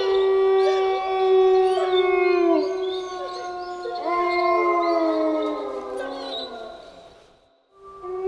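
Several wolves howling together in overlapping long howls, some held steady and some sliding down in pitch, with a new howl rising about four seconds in. The chorus fades away near the end, and fresh howls start just after.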